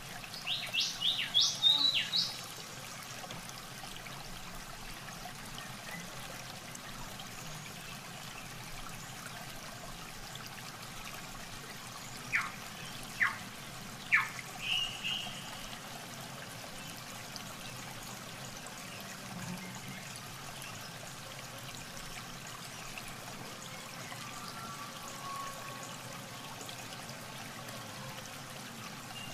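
Steady trickling water in a flooded rice paddy, with a bird calling twice over it: a quick run of high chirps near the start, and about halfway through three sharp falling whistles followed by a short note.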